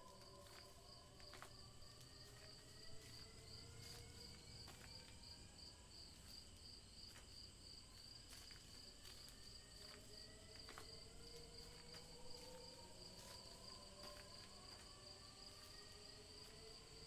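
Faint cricket chirping in a steady, fast-pulsing high trill, over several slow, drawn-out rising tones and a few scattered soft clicks.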